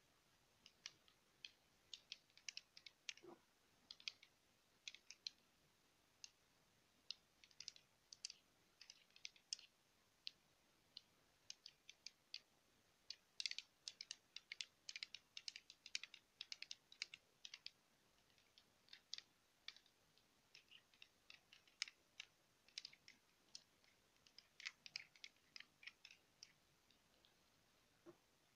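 Small die handled close to the microphone with long fingernails: quick, crisp, light clicks in irregular clusters, densest a little before halfway and again near the end.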